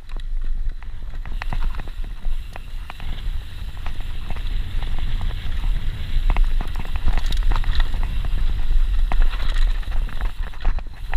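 Mountain bike ridden over a bumpy dirt trail: a continuous low rumble of wind and vibration on the rider-mounted camera's microphone, with frequent irregular clicks and rattles from the bike, more of them in the second half.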